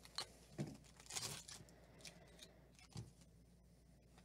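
Foil wrapper of a 2012 Panini Cooperstown baseball card pack crinkling and being torn open. It comes as a string of short crackles and rips, busiest about a second in.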